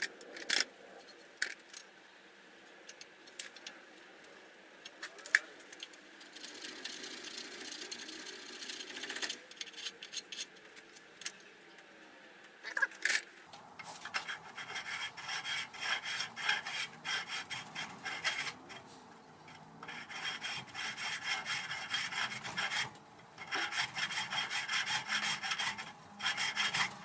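Hand file rasping back and forth in the slot of a cast aluminium fly cutter body held in a vise, widening it to take a quarter-inch tool steel bit. There are scattered knocks and scrapes at first, then a steady run of filing strokes from about halfway through.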